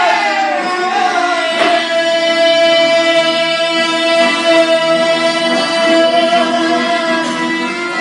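Albanian folk music played live: a long high note held for about five seconds over plucked string instruments.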